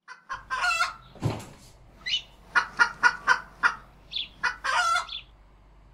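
A hen clucking and cackling: a quick run of short clucks, then a long drawn-out call near the end. There is also one brief thump about a second in.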